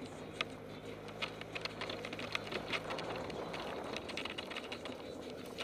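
Gas E-Z-GO golf cart engine running at a steady pace while the cart is driven, a low hum with many irregular clicks and rattles over it.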